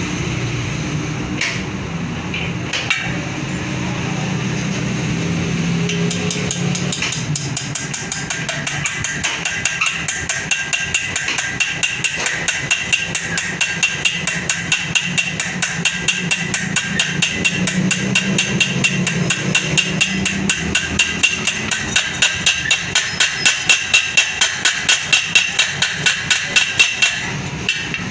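Hammer tapping a metal tool in the centre bore of a spoked motorbike wheel hub: a run of sharp metallic strikes that starts about seven seconds in and grows louder and more even, about two to three a second, over a steady background hum.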